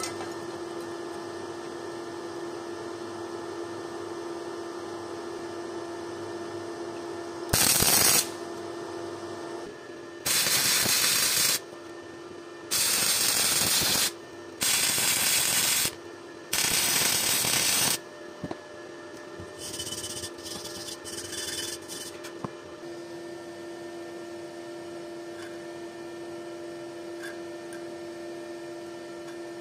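Several short bursts of hissing: one brief, louder burst, then four even bursts about a second and a half long, each starting and stopping abruptly, followed by a few faint scraping noises, over a steady hum.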